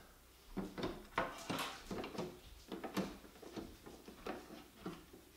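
Irregular clicks, knocks and light rattles of hands working the front handguard and battery compartment of an airsoft light machine gun.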